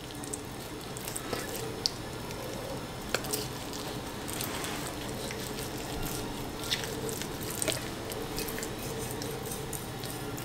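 Knife trimming sinew and silverskin from raw flank steak: faint wet squishing of the meat being handled and pulled, with a few short clicks of the blade on the cutting board.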